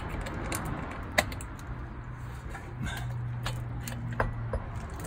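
Light metallic clinks and taps as the prop-shaft CV joint is handled and fitted by hand, the sharpest about a second in. A low steady hum runs through the middle.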